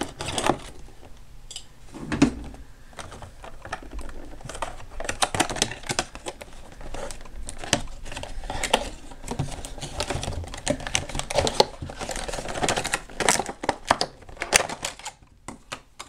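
Thin clear plastic box packaging crinkling and crackling as it is handled and pulled open, with many irregular clicks and taps.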